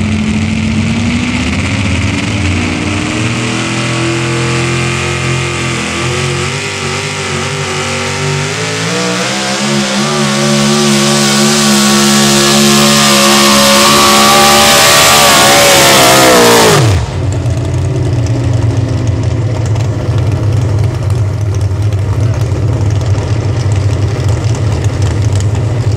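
Pulling truck's engine at full throttle dragging the weight sled, its revs wavering and climbing steadily for about seventeen seconds before dropping away abruptly. After that, a pulling truck's engine idles with a steady low rumble.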